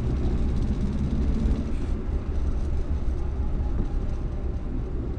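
1962 Morris Minor's four-cylinder engine running under way, with road noise, heard from inside the cabin. It is a steady low rumble with no gear change or rev change.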